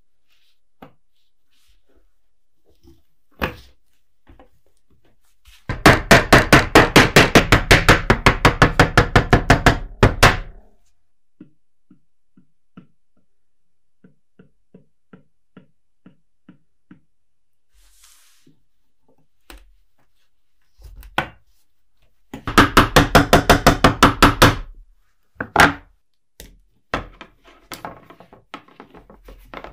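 A restored cleaver chopping fast on a cutting board, about nine strikes a second, in two runs: one of about four and a half seconds, then a shorter one of about two seconds near the end. Single knocks fall between and after the runs.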